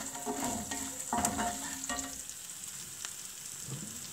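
Peanuts, chana dal, onion and chillies sizzling in oil in a cast-iron pan, stirred with a spatula that scrapes across the pan in a few strokes during the first two seconds, then mostly a steady sizzle.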